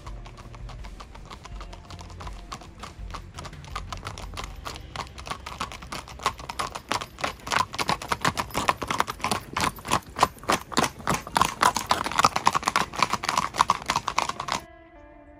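Hooves of several horses clip-clopping on a paved road in a quick, uneven patter. It grows louder from about a third of the way in and stops abruptly just before the end, where guitar music starts.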